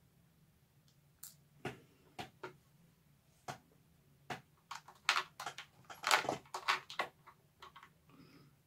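Handling of small metal reel parts and tools on a paper-towel-covered tray: scattered light clicks and taps with paper rustling, busiest about five to seven seconds in.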